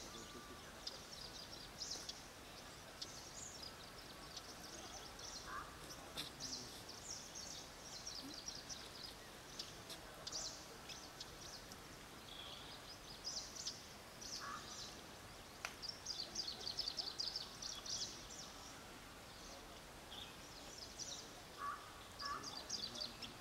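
Small birds chirping and twittering in quick high trills throughout, with a few short lower notes now and then, over a faint outdoor background hiss.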